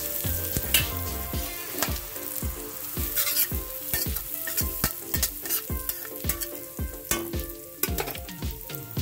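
Cumin seeds and asafoetida (hing) sizzling in hot oil in a kadhai, a steady hiss with frequent small pops and crackles: the tadka (tempering) stage of cooking.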